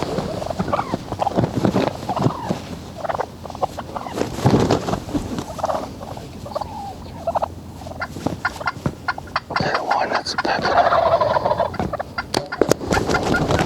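Wild turkey gobblers gobbling again and again at close range, with a few sharp knocks near the end.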